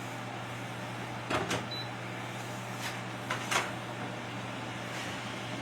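Steady low hum of a running kitchen appliance, with a few short clattering knocks: two about a second and a half in, and three more around three seconds in.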